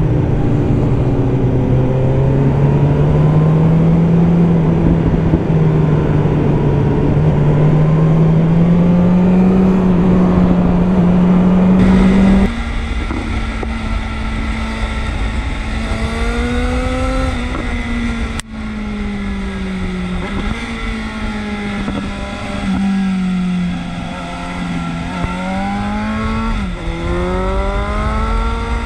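Motorcycle engine running under way, its note climbing slowly and steadily at first. About twelve seconds in the sound changes abruptly, and from then on the pitch repeatedly rises and drops back as the throttle is opened and closed.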